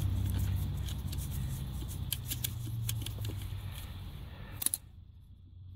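A small motor hums steadily at a low pitch, with a few sharp metallic clicks of tools on metal. The hum breaks off about five seconds in.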